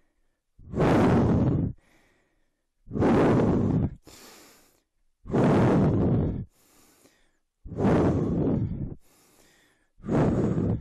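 A man exhaling hard in forceful, rough blows, five times at a steady rhythm about every two and a half seconds, with quieter hissing in-breaths between. This is exertion breathing timed to repeated dumbbell reps.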